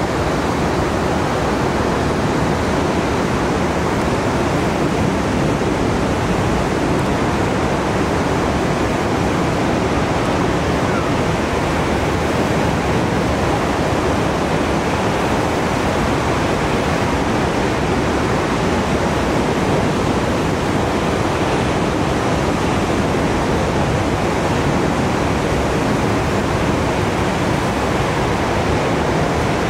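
Steady, even rush of ocean surf, with no single wave crash standing out above it.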